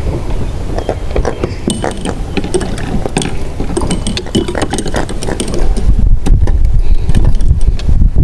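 Clicks, knocks and rattles of a small fish and a fishing line being handled and unhooked on a plastic kayak deck. A low rumble of wind on the microphone grows louder about two-thirds of the way in.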